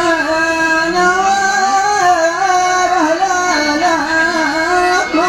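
A man singing one long, drawn-out melodic phrase of sung poetry, holding notes whose pitch wavers and glides, with a new phrase starting near the end.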